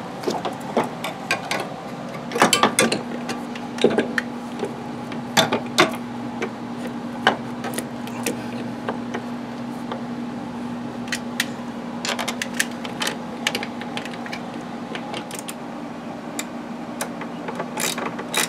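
Scattered clicks and knocks of a coil-over rear shock absorber and hand tools bumping against the motorcycle's frame and fittings as the shock is worked into place, over a steady low hum.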